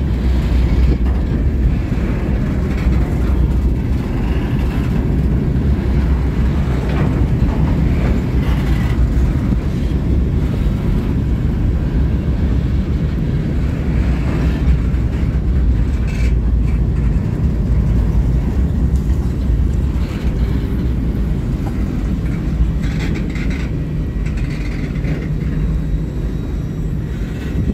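Freight train rolling past on a curve: a steady, heavy rumble of wheels on rail, with brief high squeals now and then.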